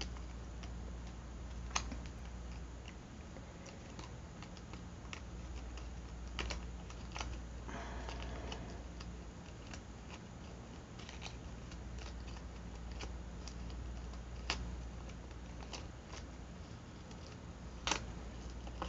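Hands handling and smoothing a small glossy magazine paper cutout on a journal page: scattered light clicks and taps, with a brief paper rustle about eight seconds in, over a faint steady low hum.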